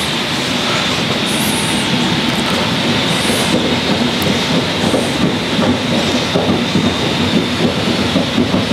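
Bruder EXP-6 caravan's air suspension lowering the van: a steady hiss with a fast rattle beneath, as the air springs are let down.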